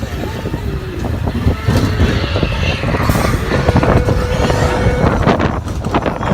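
Slinky Dog Dash roller coaster train running along its track, heard from a seat on board: a loud, steady rumble. A held tone comes in partway through, and the rumble breaks into a run of knocks near the end.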